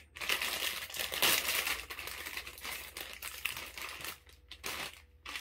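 Plastic bread-bag wrapper crinkling as it is handled and squeezed. The crackling is dense for the first four seconds or so, then thins to a few rustles near the end.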